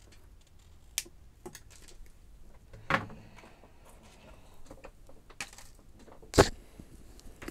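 Scattered small clicks and knocks of tools and small objects being handled and set down on a workbench. A sharper knock shortly before the end is the loudest.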